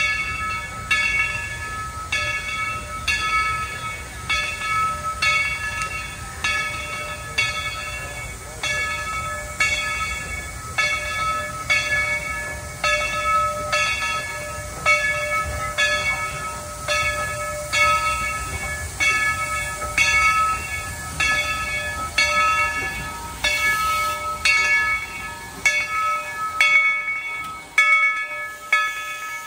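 A steam locomotive's bell, on engine No. 70, ringing steadily about once a second, a little faster near the end, over the low rumble of the train.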